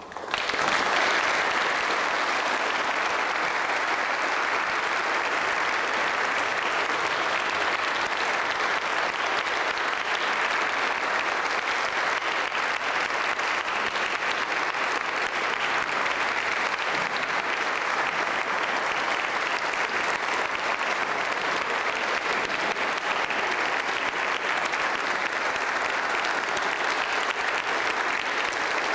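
Audience applauding: dense clapping that breaks out suddenly from quiet and holds steady.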